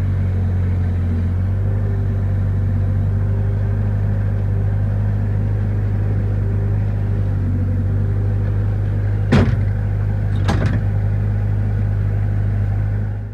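Bobcat skid steer engine running steadily under load, a loud low drone. Two sharp knocks come about a second apart, past the middle.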